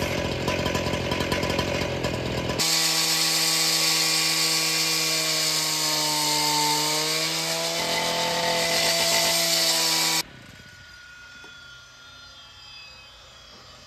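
Concrete demo saw (cut-off saw): the engine running, then the blade cutting concrete with a loud hiss and a whine that shifts in pitch under load. About ten seconds in the sound cuts off abruptly, leaving only quiet background.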